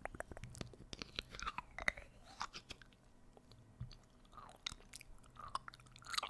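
ASMR mouth sounds close to the microphone: a quick run of wet clicks and smacks with short squelching glides.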